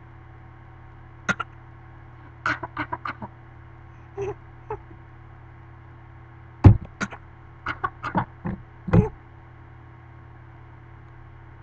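A baby's short fake coughs, coming singly and in quick runs of two to four, the loudest about two thirds of the way through.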